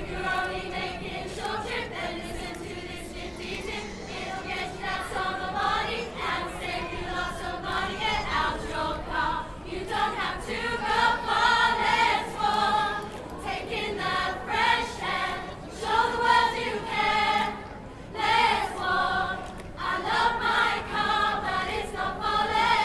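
A large group of mostly women's voices singing a song together, in phrases that grow louder about halfway through.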